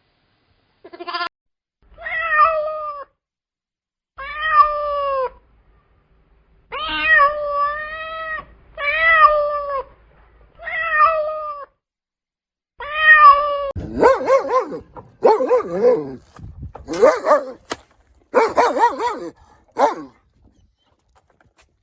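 Domestic cat meowing repeatedly: about six drawn-out meows, each about a second long with a falling pitch. In the second half they give way to a denser run of shorter, overlapping cries.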